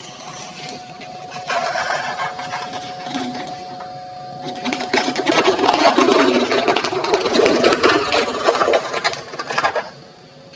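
Plastic toy truck being pushed through sand: a rattling, scraping sound of wheels and sand that starts a second or two in, grows louder about halfway through and stops shortly before the end.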